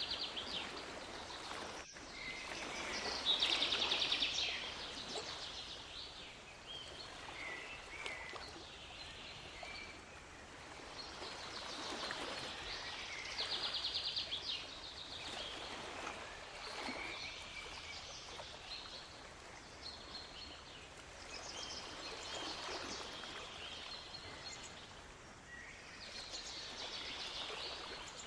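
Small birds chirping and singing, with two loud rapid trills about three and thirteen seconds in, over waves washing in that swell and fade every few seconds.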